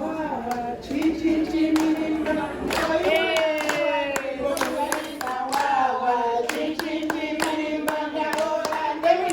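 A group of women singing a traditional song together, with steady hand clapping in time at about two claps a second.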